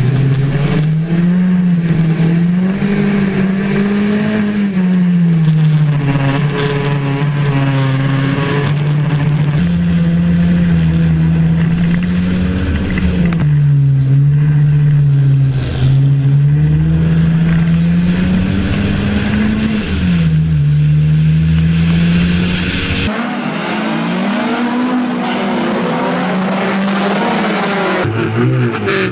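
Racing car engine heard from an onboard camera, revving up and dropping back again and again through gear changes at racing speed, with wind and road noise. The sound switches abruptly between cars a few times, and near the end a car passes.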